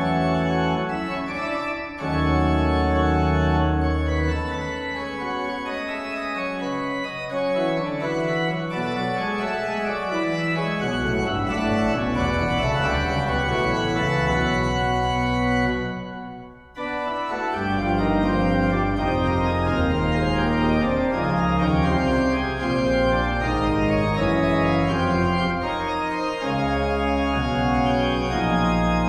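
Pipe organ playing sustained chords over deep pedal bass notes, with a short break about two-thirds of the way through before the chords resume.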